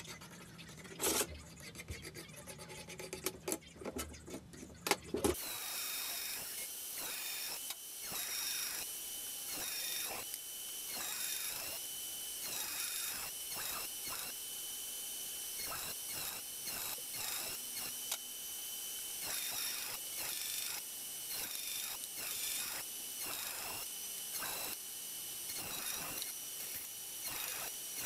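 A few light knocks and scrapes of steel strip handled on a metal bench, then from about five seconds in a cordless band saw running and cutting steel bar. Its high motor whine dips in pitch again and again as the blade loads up, then recovers.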